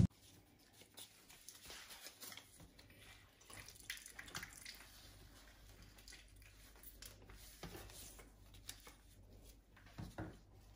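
Faint squishing and dripping as lemon halves are squeezed in a plastic hand-held lemon squeezer, with a few soft knocks and rustles.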